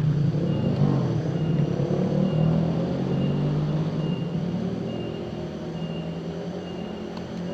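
A motor engine running steadily, its pitch drifting slowly and its level easing off in the second half. A faint high chirp repeats about every two-thirds of a second over it.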